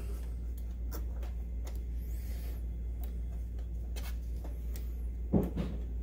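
Scattered light clicks and a brief rustle of small plastic wire-harness connectors and cables being handled and seated inside an opened DLP projector, over a steady low hum.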